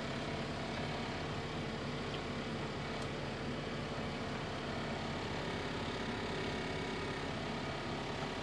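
A pot of vegetable soup boiling on an induction cooktop, a steady bubbling rumble and hiss.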